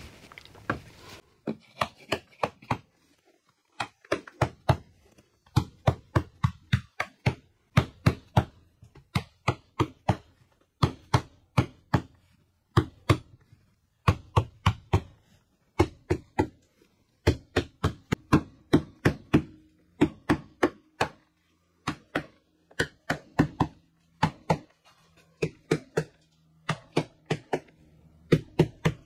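A small mallet knocking plastic T-moulding into the metal ceiling track of an RV, seating its trimmed leg in the groove. Quick sharp knocks come in clusters of two to five, over and over, with short pauses between.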